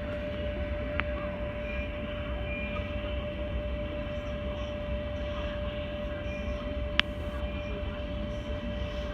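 Airport background noise heard from inside the terminal: a steady low rumble with a constant mid-pitched hum, broken by two sharp clicks, one about a second in and a louder one about seven seconds in.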